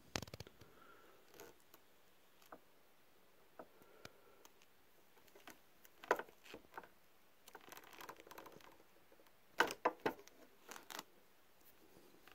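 Faint, scattered clicks and rustles of hand work on a faux-leather seat cover, as a revolving leather punch is worked to punch a small screw hole. A few louder clicks come about six seconds in and again around ten seconds in.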